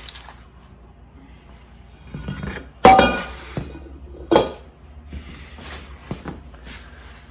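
Handling of a heavy Lodge enameled cast-iron Dutch oven and a crusty baked loaf: a few knocks and clunks as the loaf is tipped out onto a wooden board and the pot is set down on a stone countertop. The two loudest knocks come about three and four and a half seconds in.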